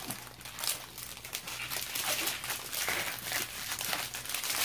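Clear plastic packaging crinkling and rustling as small bags of diamond painting drills are handled.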